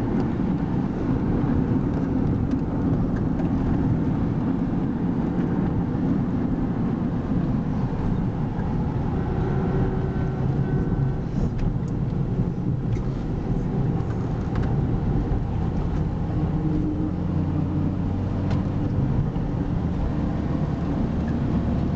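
Car driving on a road, heard from inside the cabin: a steady rumble of engine and tyre noise. A brief faint double tone sounds about ten seconds in.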